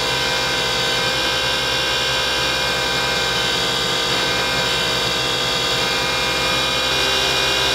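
Wood lathe running steadily at speed: an even motor hum and whine with several fixed tones. A paper towel is held against the spinning stopper to rub in friction polish.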